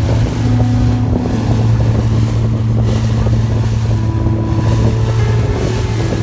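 Tour boat's engine running steadily with a low hum, with wind buffeting the microphone.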